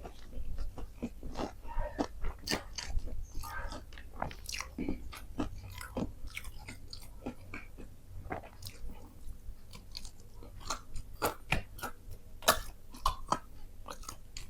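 A person chewing and biting into food close to the microphone, with irregular crunches and wet mouth clicks.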